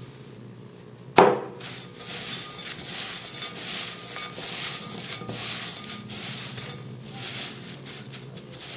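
A sharp knock about a second in, then hands mixing a gritty orchid substrate of akadama, perlite and peat in a glass bowl: a continuous crunching rustle of grains with small clinks against the glass.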